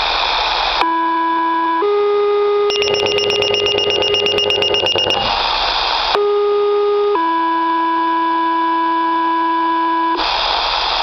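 Two-tone sequential paging tones received over a radio and pager speaker: a steady low tone, then a slightly higher one, with a pager's rapid high-pitched alert beeping over it. Then a second tone pair ending in a long low tone of about three seconds, with bursts of radio static between transmissions.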